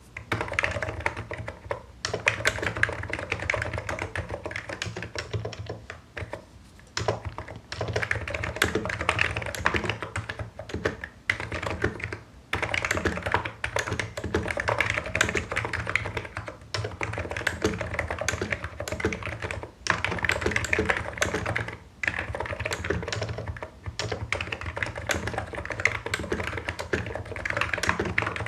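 Typing on a Hansung Office Master full-size electro-capacitive (Topre-style) keyboard with low Cherry-profile keycaps: rapid continuous keystrokes in runs, broken by short pauses every few seconds.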